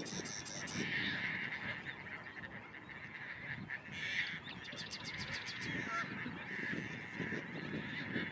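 Waterbirds calling in the background, honking and chattering like geese or ducks, with a fast run of short high notes about halfway through.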